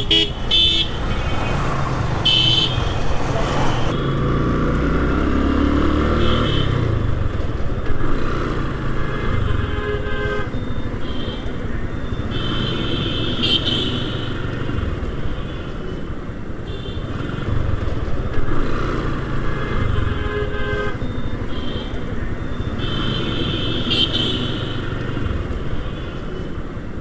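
Bajaj Pulsar 135LS single-cylinder motorcycle engine running under way in town traffic, its speed rising and falling. Short horn toots sound several times from the surrounding traffic.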